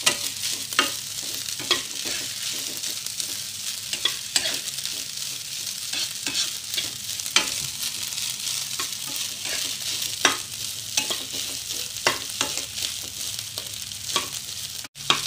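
Egg fried rice sizzling in a non-stick wok as a metal spatula stirs and scrapes it, with irregular scraping strokes over a steady frying hiss; the rice is being fried until dry.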